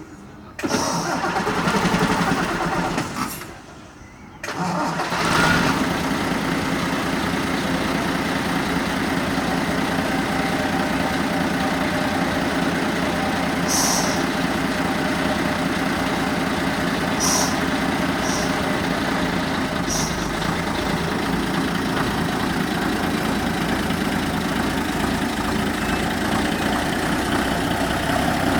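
Diesel engine of a classic Saurer Swiss Post bus starting up: it catches about half a second in, drops away near three seconds, starts again about four seconds in and then idles steadily.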